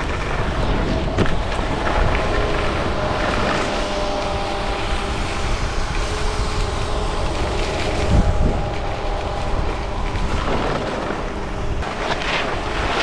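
Wind rushing over an action camera's microphone during fast skiing, with skis scraping and carving on groomed snow. A low thump comes about eight seconds in.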